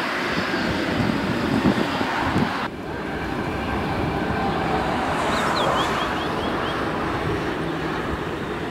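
Steady jet engine noise from an Airbus A330-900neo's Rolls-Royce Trent 7000 engines as the airliner rolls along the ground, mixed with wind buffeting the microphone. The sound drops abruptly about a third of the way in. A short series of faint high chirps comes around the middle.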